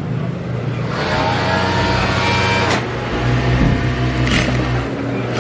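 Juki industrial flatbed sewing machine stitching a size label onto a garment. A steady motor hum runs throughout, and about a second in the machine whines at speed for about two seconds, with a few short clicks.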